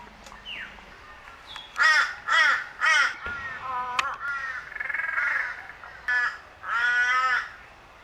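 A crow cawing: three loud, short caws about two seconds in, then several weaker caws and one longer, wavering caw near the end.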